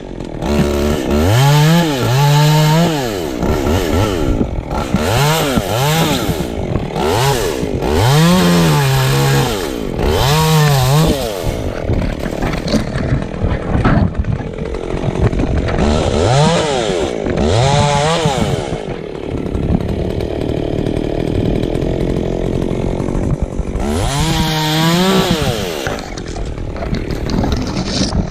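Chainsaw in a tree, its engine revving up and dropping back again and again as it cuts wood: a quick run of revs through the first ten seconds or so, two more past the middle and one near the end, running at lower speed in between.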